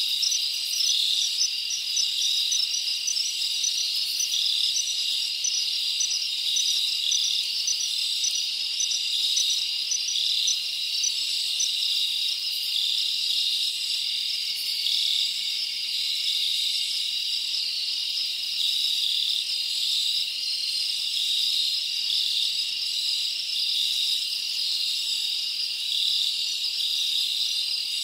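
Steady night-time insect chorus, high-pitched and continuous, with rapid repeated chirps layered over it.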